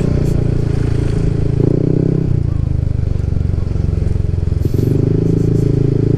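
Yamaha NMAX 155 scooter's single-cylinder four-stroke engine running steadily while riding along, its note shifting briefly about a second and a half in and again just before five seconds in.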